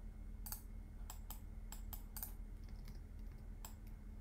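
Scattered, uneven clicks of a computer keyboard and mouse, roughly two a second, as hotkeys are pressed and the mouse is clicked. Under them is a faint steady low hum.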